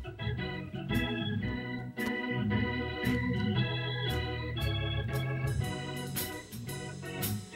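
Organ playing sustained chords that change about once a second, with occasional sharp clicks over them.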